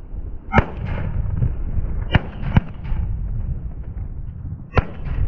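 Four shotgun shots fired at incoming Canada geese: one about half a second in, two close together around two seconds in, and one near the end, each followed by a short echo. Steady wind noise rumbles on the microphone underneath.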